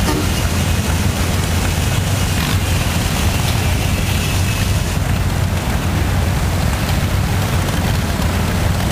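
Engine running steadily at an even speed, a constant low hum with a hiss of noise over it.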